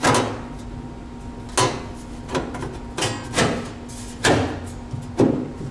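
A hand knocking and patting on a sheet-steel transmission tunnel plate fitted in a car's floor: several irregular knocks with a short metallic ring, about one a second.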